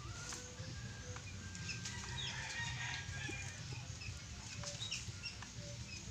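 Chickens clucking and calling in short chirps, busiest about two to three seconds in, over a steady low hum.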